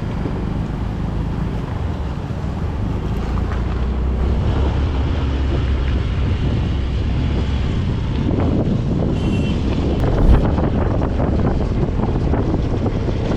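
Yamaha RayZR 125 scooter's 125 cc single-cylinder engine running on the move, with wind buffeting the microphone. About eight seconds in, the road noise turns rougher and jolting, with a thump about two seconds later, as the scooter goes over a bumpy stretch.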